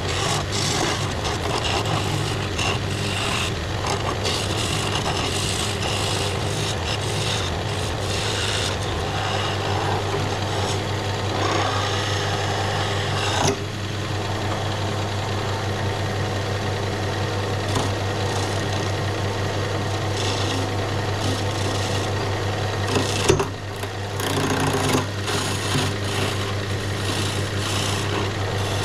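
Wood lathe motor running with a steady hum while a skew chisel cuts a spinning wooden spindle, the cutting noise rising and falling from pass to pass. A short sharp knock about 23 seconds in, then a brief lull in the cutting.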